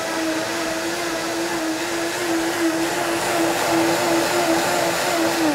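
Cecotec Power Black Titanium jug blender motor running at a steady high speed, blending coffee, milk and ice cubes into an iced coffee. Near the end it is switched off and the motor winds down, falling in pitch.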